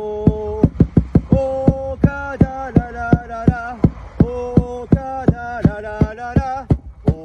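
Football supporters' chant: a melody of held, sung notes over regular drum beats, about three a second.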